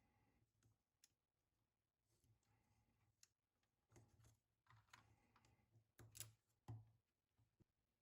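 Faint, scattered clicks and small plastic taps from hands handling the keyboard's parts and connectors, a few closer together about four to seven seconds in.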